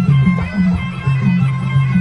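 Traditional Khmer boxing ring music: drums beat a quick repeating pattern of two alternating low notes while a higher melody line runs over them.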